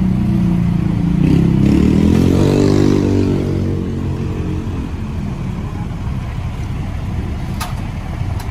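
A small motor vehicle's engine passing close by, its pitch rising about two to three seconds in, then fading into steady street noise. A light clink near the end.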